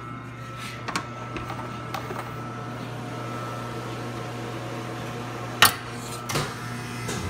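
Stoelting U431 soft-serve machine running its refrigeration with a steady hum. A few light knocks come early on, then a sharp clack about five and a half seconds in and another knock about a second later.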